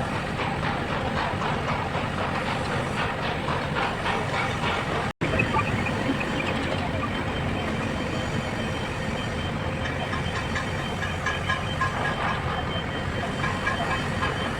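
Heavy machinery running steadily, with indistinct voices mixed in. The sound cuts out for an instant about five seconds in.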